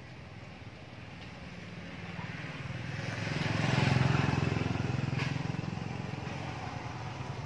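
A motor vehicle passing by: a low engine rumble and road noise that build to a peak about four seconds in, then slowly fade.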